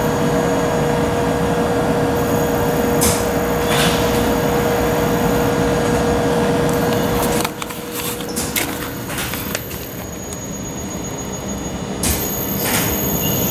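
Steady machine noise with a hum that cuts off about halfway through, leaving a quieter running noise with scattered clicks and ticks.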